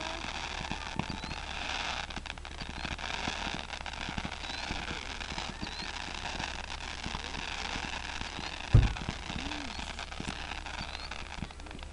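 Fireworks crackling steadily with many small pops, and one sharp, much louder thump about nine seconds in.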